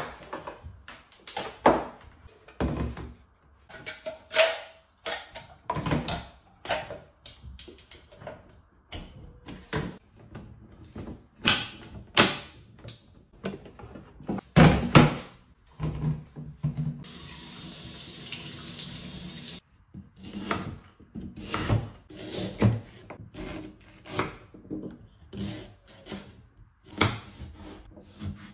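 Kitchen handling sounds: a string of knocks, clicks and clatter as a kettle and a juicer are handled on a worktop. A steady rushing noise runs for about two and a half seconds past the middle.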